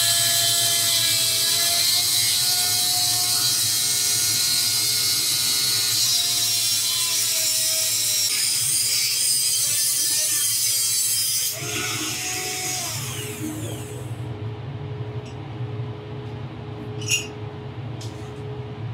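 Dremel rotary tool with a cut-off wheel cutting through an old 1¼-inch galvanized steel pipe: a steady high whine with a loud hiss of grinding. It stops abruptly about eleven seconds in, and the motor winds down over the next couple of seconds.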